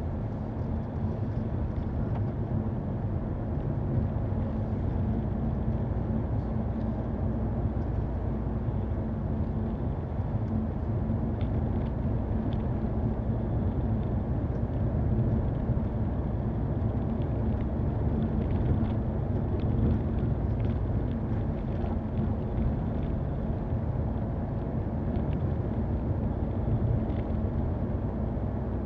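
Car driving on a gravel road, heard from inside the cabin: a steady low drone of engine and tyres with a constant hum, and occasional faint ticks.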